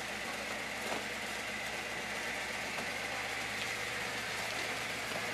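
Parked bus engine idling steadily, with a few faint knocks and footsteps.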